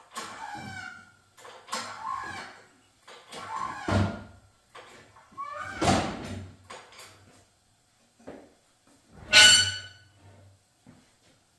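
Hand-pumped hydraulic engine hoist lifting an engine and transaxle, squeaking with each pump stroke, about one squeak every two seconds. A louder, sharper squeal comes about nine seconds in.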